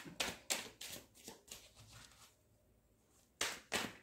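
Oracle card deck being shuffled by hand, the cards slapping and snapping together: a quick run of about six sharp slaps in the first second and a half, a pause, then two more near the end.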